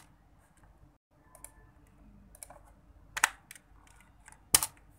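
A few separate keystrokes on a computer keyboard, typed slowly and spaced out, with two louder key clicks about three seconds in and near the end.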